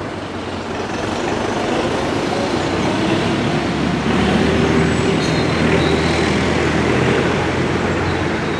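Tractor engine running steadily with a low drone, growing louder over the first few seconds as it approaches and easing slightly near the end.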